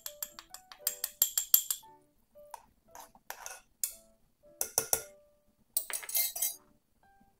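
A small glass dish clinking against a metal spoon in a quick run of taps as black pepper is shaken out, then a metal ladle stirring, clinking and scraping against the side of an aluminium saucepan, over soft piano background music.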